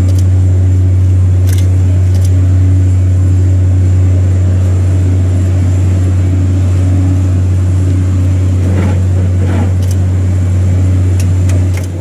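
Loud, steady low hum of machinery running on the airport apron beside the parked airliner, with faint voices and a few clicks about nine to ten seconds in.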